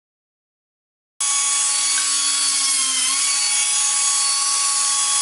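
Air die grinder with a small abrasive disc running at speed and blending the corners of a machined metal part: a steady high whine over a hiss. It starts suddenly about a second in, and its pitch sags briefly near the middle as the disc bears on the work.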